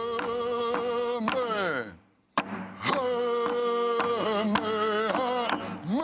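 Men singing a chant, two long held notes that each slide down at the end, with a short break about two seconds in, over a steady struck beat.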